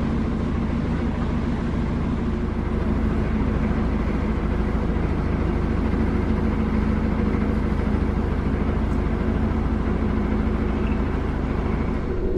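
Narrowboat's diesel engine running steadily while the boat is under way, a low, even running sound with a fast regular pulse.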